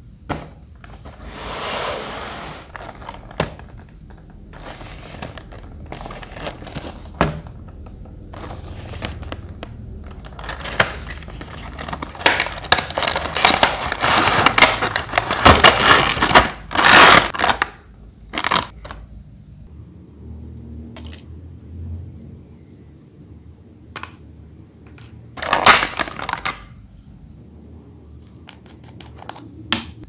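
Cardboard box and clear plastic blister packaging being handled and opened: irregular rustling and crinkling with sharp clicks, loudest in a long stretch around the middle and again briefly near the end.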